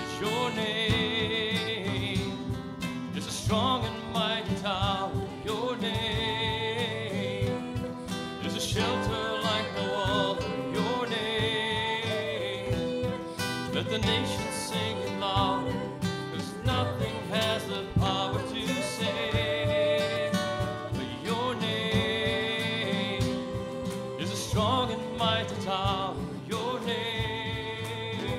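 Live worship band playing a contemporary Christian song: a man and a woman singing the melody together over two strummed acoustic guitars.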